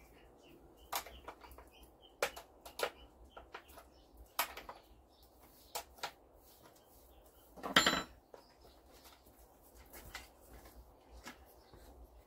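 Sharp, irregular metallic clicks and knocks from a small Stihl MS 170 chainsaw being handled on a bench, with one louder short rattle about eight seconds in.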